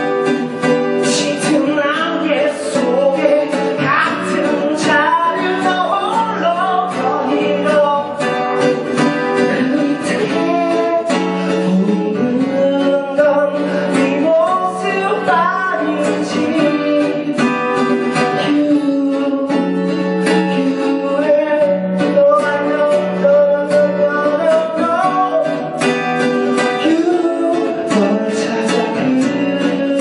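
A man singing a song, accompanying himself on a strummed acoustic guitar.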